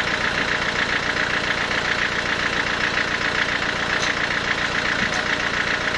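Sawmill machinery running steadily, with a fast, even pulsing throb.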